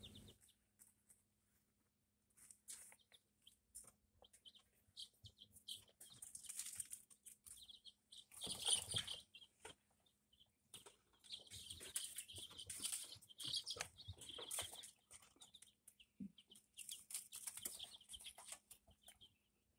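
ISA Brown chicks peeping faintly in short, high calls, with scratchy rustling as they move about. The rustling is loudest about nine seconds in.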